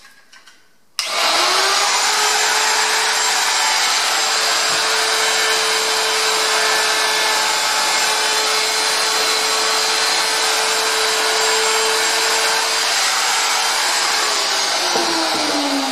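Handheld wood router with a quarter-inch down-spiral flush-trim bit switched on about a second in, spinning up quickly to a loud, steady whine while trimming the top edge of an MDF speaker cabinet. Near the end it is switched off and winds down, its pitch falling.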